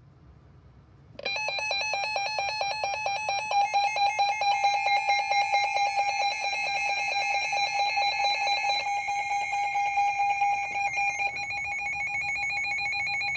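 Electronic emergency alert attention tone starting about a second in: a loud, steady, harsh electronic tone with a fast even pulsing, signalling that an emergency broadcast warning is about to be read.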